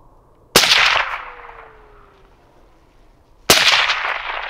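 Two rifle shots about three seconds apart, each a sharp crack followed by a long echo that dies away over about a second.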